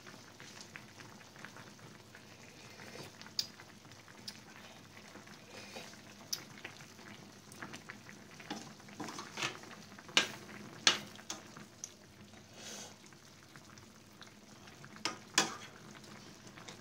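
Sinigang broth simmering in a stainless pan with a faint, steady bubbling hiss. A metal spoon stirs and scoops through it, clinking sharply against the pan several times, most loudly in the second half.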